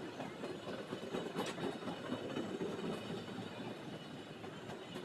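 Intercity Express passenger coaches rolling along a station platform: a steady rumble of wheels on rail with an occasional clack, the clearest about a second and a half in.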